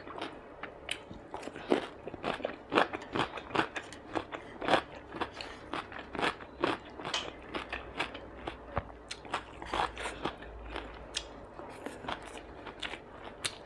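A person eating and chewing: biting into and crunching a cucumber slice, with a run of short wet mouth clicks and smacks, a few a second.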